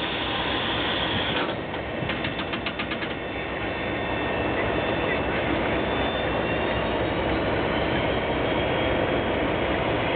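Peppercorn A1 Pacific steam locomotive Tornado hissing steam close beside its cab. About two seconds in comes a rapid, even ticking that lasts about a second and a half.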